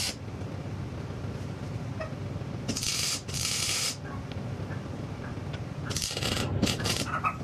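Wire-feed welder laying tack welds: four short bursts of crackling arc, two around three seconds in and two more near the end.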